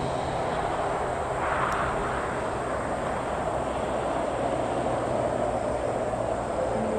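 Jet airliner engines running steadily as an arriving plane comes in to land.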